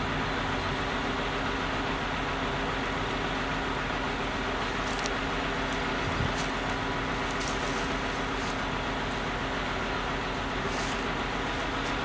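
Mobile crane's diesel engine running steadily at an even speed, with a steady low hum.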